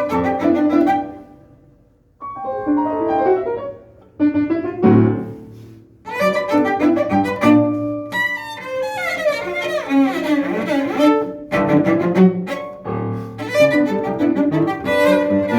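Cello and piano playing together. The first few seconds come in short phrases broken by brief pauses, and the duo plays continuously from about six seconds in.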